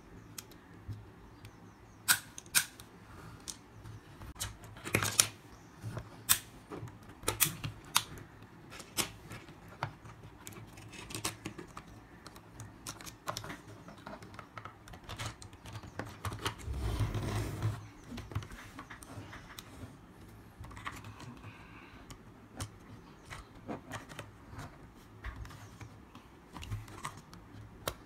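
Irregular hard plastic clicks and knocks from a toy excavator and interlocking plastic building blocks being handled and set down on a wooden table. About two-thirds of the way through comes a longer rubbing noise, as of the toy being slid or rolled over the table.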